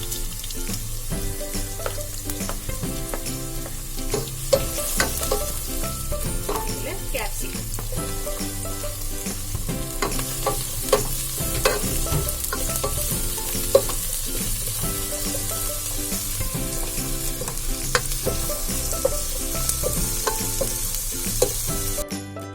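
Chopped garlic, ginger, green chilli and spring onion sizzling in hot oil in a pan as they are stir-fried, with scattered clicks and scrapes of the spatula against the pan. The sizzle cuts off abruptly near the end.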